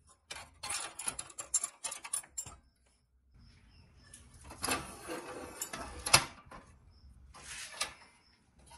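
A rusty pressed-steel toy dump truck handled on a workbench: three spells of metal scraping and rattling with sharp clicks, separated by short quiet gaps.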